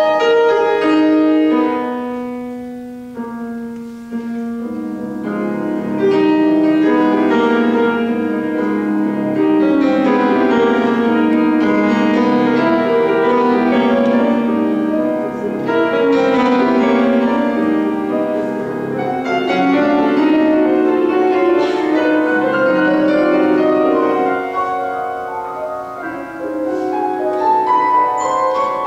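Steinway grand piano playing a classical piece, dense with overlapping notes. It softens for a few seconds early on, grows louder and fuller from about six seconds in, and climbs in a rising run near the end.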